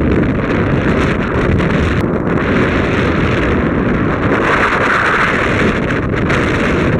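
Wind buffeting the microphone of a moving bike: a steady, loud rushing, with a brighter hiss swelling about four to six seconds in.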